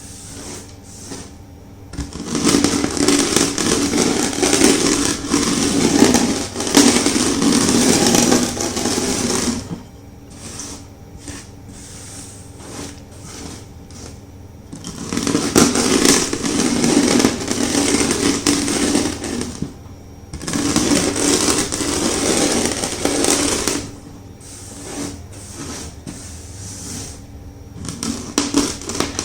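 Rolling pin crushing chunks of gym chalk: three long stretches of dense crunching, with quieter gaps of scattered crackles between them.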